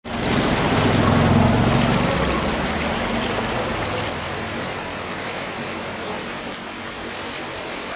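A motorcycle engine running as it rides through floodwater, with splashing and rushing water; the engine hum is loudest in the first two or three seconds, then gives way to a steady rush of water.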